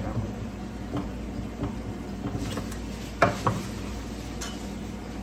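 A few light taps, then one sharp clink of a utensil against a dish about three seconds in, followed by a smaller one, over a steady low hum.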